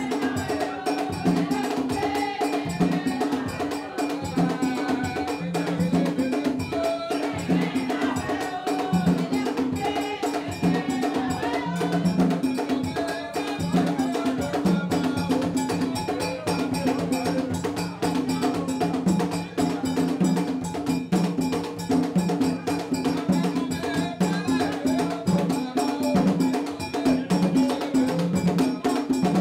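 Live vodou ceremonial music: a struck metal bell and percussion keep a fast, unbroken rhythm while a group sings.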